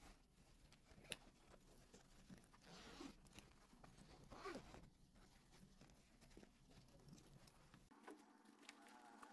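Faint rustling of a fabric school backpack being handled, with a few small clicks and short scraping sounds from its zippers and buckles.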